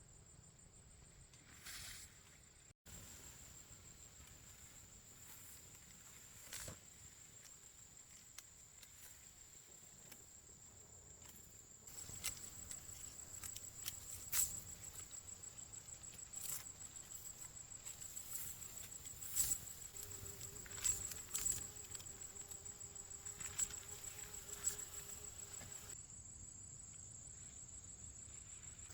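Insects trilling steadily at a high pitch, with scattered clicks and rustles that grow louder and more frequent about halfway through.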